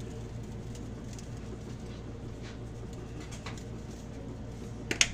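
Steady low hum with faint scattered ticks, and two sharp clicks close together near the end.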